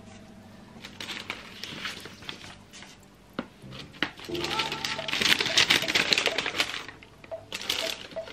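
Tissue paper rustling and crinkling as it is unfolded and lifted out of a shoe box, loudest from about four to seven seconds in.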